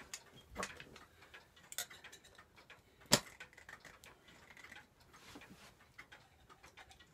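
Faint, irregular metallic clicks and taps from hands and a tool working on a brass clock movement, with one sharper click about three seconds in. This is the gathering pallet being worked at, which is stuck and won't come off.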